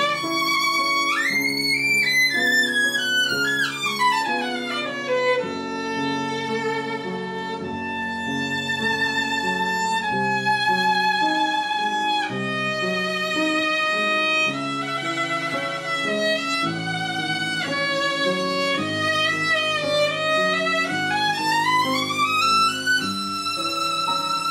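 Background music: a violin melody with vibrato and long sliding notes over sustained accompanying chords. It has a long slide down about two seconds in and a slide back up near the end.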